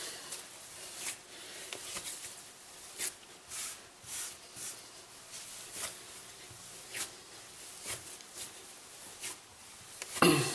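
Hands kneading whole-wheat dough on a floured wooden board: short rubbing and pressing sounds about once a second, with one louder thump near the end.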